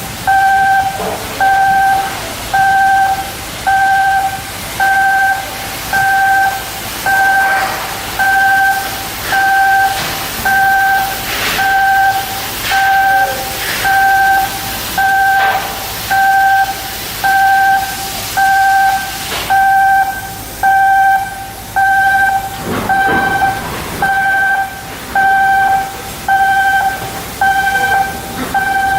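An electronic warning beeper repeats about once a second, one steady pitch per beep. A second, higher beeper joins about two-thirds of the way through. Scattered metallic knocks and clanks are heard in the middle.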